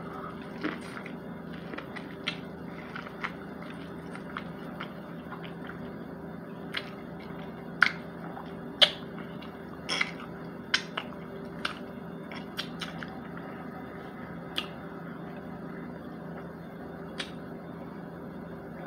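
Close-up chewing of fried chicken: wet mouth sounds and lip smacks, with many short sharp clicks, the loudest about eight and nine seconds in. A steady low hum runs underneath.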